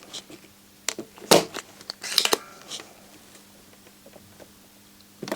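Small hand tools clicking and tapping during desoldering work on a circuit board: a handful of sharp clicks, the loudest about a second in and a quick cluster near the middle, over a faint steady hum.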